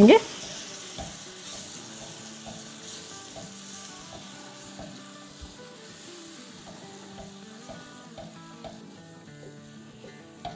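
Semolina and water sizzling in a hot nonstick pan while a silicone spatula stirs and scrapes it into a thick paste. The sizzle dies down steadily as the semolina absorbs the water.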